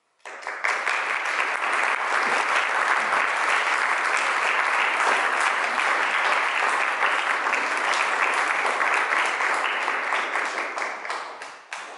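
Audience applauding. It starts suddenly, holds steady, then thins out to a few scattered claps near the end.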